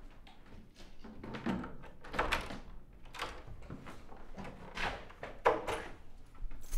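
A door being handled and passed through, with a series of short clunks and knocks, the sharpest about five and a half seconds in.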